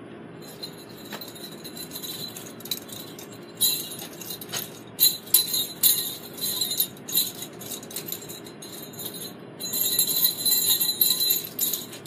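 Small jingle bells on a homemade jingle-bell begleri jingling in uneven bursts as the begleri is swung and flipped. The jingling is sparse at first and grows busier from about a third of the way in, with a short lull near the end.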